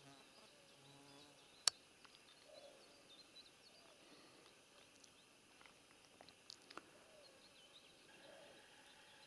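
Near silence of open countryside, with faint scattered bird chirps and one sharp click a little under two seconds in, followed by a couple of weaker clicks later on.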